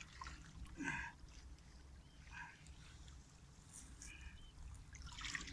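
Quiet streamside sound: a low steady rumble with faint water stirring as a long-handled hand net is worked through a shallow stream under the bank. A few brief faint calls come about a second in, again in the middle and near the end.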